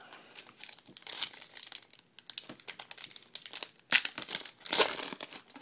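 A foil trading-card pack being torn open and its wrapper crinkled, in irregular crackling bursts, the loudest about four and five seconds in.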